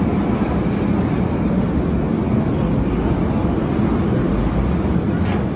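Berlin U-Bahn train pulling out of an underground station, a steady low rumble of motors and wheels on the track. About four seconds in a thin high-pitched squeal comes in over the rumble.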